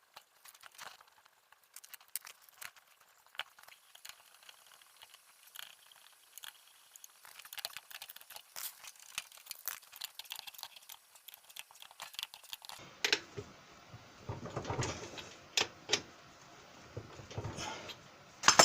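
Scattered sharp clicks and light clinks of metal being handled, sparse at first and busier later. About thirteen seconds in the sound grows fuller and louder, with a few heavier knocks, the loudest right at the end.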